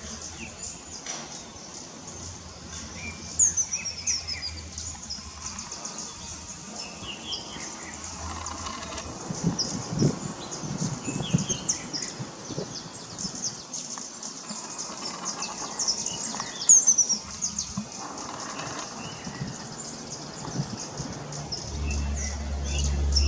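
Birds chirping and calling, with many quick high chirps and two clear falling calls. Near the end a low steady rumble comes up under them.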